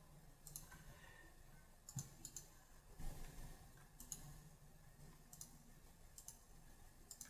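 Faint computer mouse clicks, a handful scattered about a second apart, over a low steady hum.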